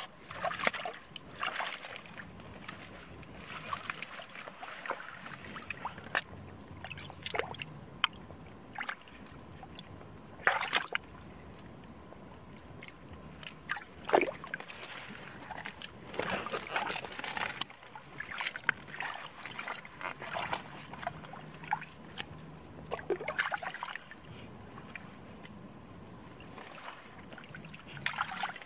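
Hands and small stranded fish splashing in a thin layer of muddy water: irregular splashes and sloshing as the fish are grabbed out of the mud.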